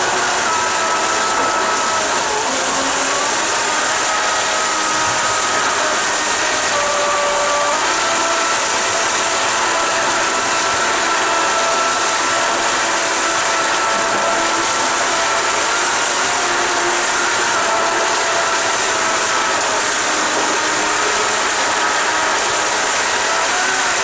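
Electric jet-surfboard jet drive running in a water test tank: a steady loud rush of churning water from the jet outlet, with the brushless motor's whine over it, stepping up and down in pitch now and then.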